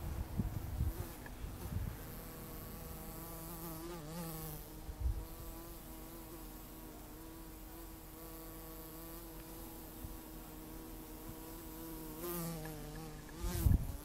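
A large carpenter bee hovering, its wings making a steady buzzing drone that wavers in pitch as it turns, about four seconds in and again near the end. A few low thumps, the loudest near the end, come from the camera being moved.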